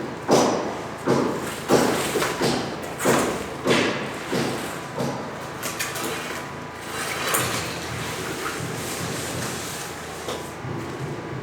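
A run of regular thuds, about one and a half a second, growing weaker and dying away about halfway through, leaving a steady background noise.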